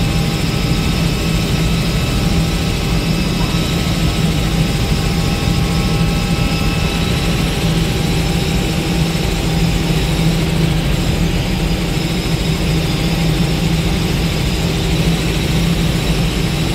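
Robinson R66 turbine helicopter in cruise flight, heard inside the cabin: the steady drone of its Rolls-Royce RR300 turboshaft engine and rotors, with a strong low hum.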